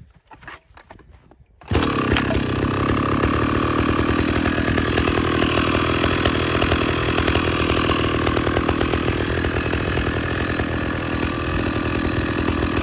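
A STIHL 045 AVEK two-stroke chainsaw comes in abruptly about two seconds in and runs at a steady speed, held in the air and not cutting. Before that there are a few faint clicks.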